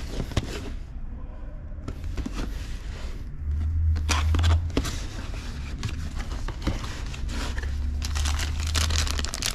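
Packaging being opened and handled: plastic and paper crinkling and rustling, with scattered short knocks and clicks.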